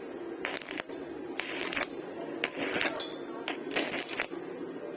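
Half a dozen short rasping strokes on steel, about one a second, with light metallic clinks.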